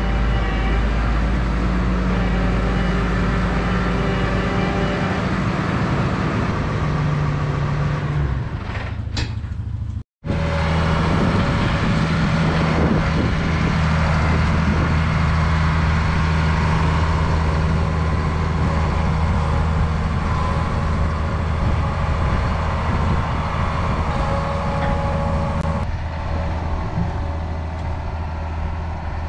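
Vehicle engine running steadily. It cuts out abruptly about ten seconds in and resumes at a different pitch.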